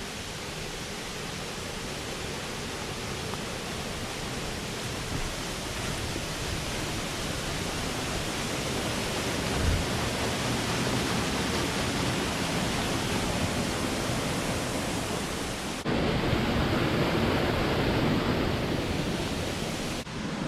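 Waterfall and mountain stream: a steady rush of falling water that slowly grows louder. Near the end it steps abruptly to a louder, deeper rush.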